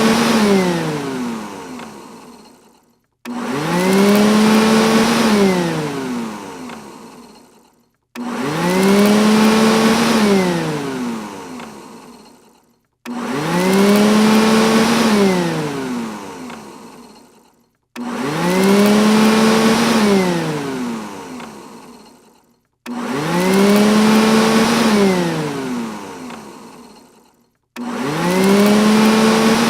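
Robot vacuum cleaner's motor whirring up suddenly, holding for about a second, then winding down with a falling whine and fading out. The cycle repeats over and over, about every five seconds.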